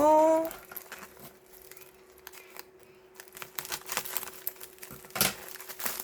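Packaging rustling and crinkling with small handling clicks as purchases are unwrapped, with one louder sharp crinkle about five seconds in.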